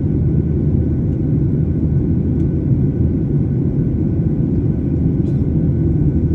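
Steady low rumble of a Boeing 737-800 in flight, its CFM56 jet engines and airflow heard as an even drone with a faint steady whine above it.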